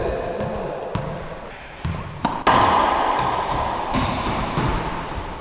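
Racquetball rally: sharp cracks of the ball being struck and rebounding off the walls, echoing around the enclosed court. One comes about a second in, a loud close pair about two and a half seconds in, and another near four seconds.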